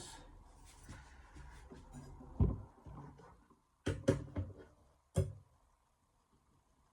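A few light knocks and rubbing sounds of things being handled on a workbench: one knock, then a quick pair about a second and a half later, and a last one a second after that.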